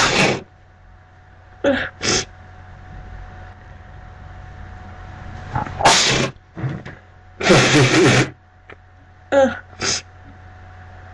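A person sneezing several times in a row, with short pauses between. The loudest sneezes come right at the start and about six seconds in, followed by a longer noisy burst a little after seven seconds and two shorter ones near the end.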